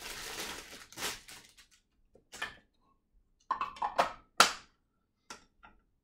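Plastic wrapping crinkling for about the first second, then a few separate light taps and knocks as a small paper box is handled, the loudest about four and a half seconds in.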